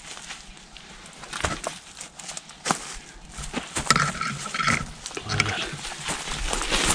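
Dry brush and twigs crackling and snapping in scattered sharp clicks as a person crawls and pushes through thick thorny scrub, with rough, heavy breathing close to the microphone.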